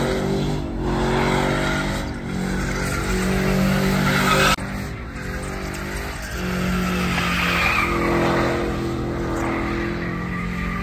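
Pickup truck engine held at high revs, rising and falling, while its rear tyres spin and squeal in a smoky burnout, with an abrupt break about halfway through.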